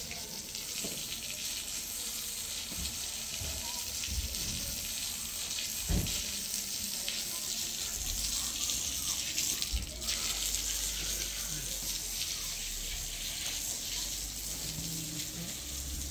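A steady rushing hiss, with dull knocks about six and ten seconds in.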